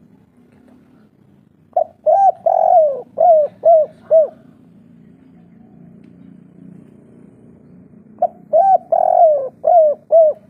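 Spotted dove cooing: two song phrases of about six hooting notes each, a short note and a longer swelling coo followed by three short coos (the 'kuk 3' song type), the second phrase starting about six seconds after the first.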